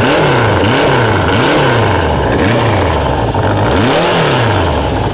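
1980 Suzuki GS550L's air-cooled inline-four engine, running and revved by hand on the throttle in about five short blips, the pitch rising and falling back each time, the last and highest about four seconds in.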